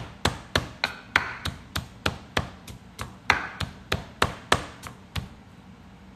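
Wooden pestle pounding chopped garlic in a wooden mortar to crush it and draw out its juice: a steady run of knocks, about three a second, that stops about five seconds in.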